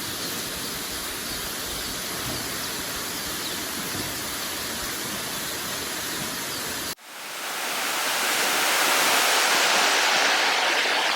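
Waterfall rushing steadily. About seven seconds in, the sound cuts off abruptly to a louder, hissier rush that swells up over a couple of seconds and then holds.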